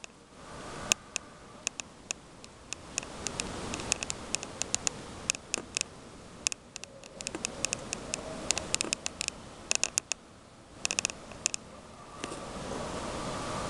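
A grey squirrel gnawing at food in a tree, making irregular sharp clicks and crackles, some single and some in quick runs. The clicks stop a little before the end, and a steady hiss comes up.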